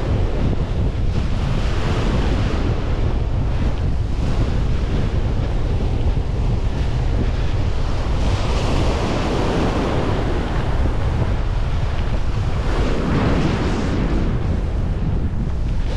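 Wind buffeting the microphone over the steady wash of surf breaking on a beach. The surf swells louder twice in the second half.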